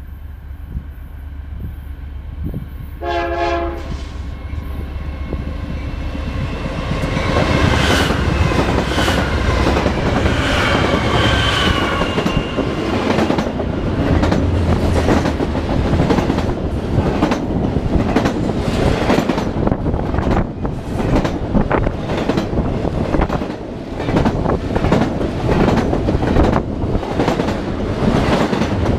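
Diesel-hauled freight train passing: the locomotives rumble, a short horn blast sounds about three seconds in, and the sound swells as the engines go by. A long string of double-stack container cars then clatters steadily over the rails.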